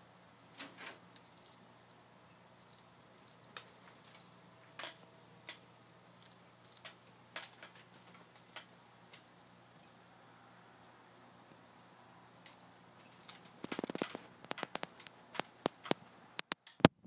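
A steady high, thin insect trill, typical of a cricket, under scattered sharp clicks and ticks. A run of louder knocks and clicks starts about three-quarters of the way through and grows sharper near the end.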